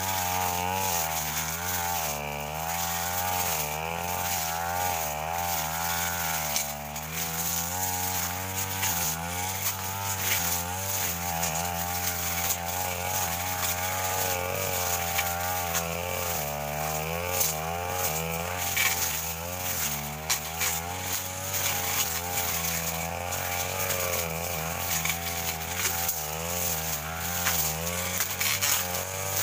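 Petrol brush cutter running at working speed while clearing undergrowth. Its engine pitch rises and falls again and again as it cuts into the growth.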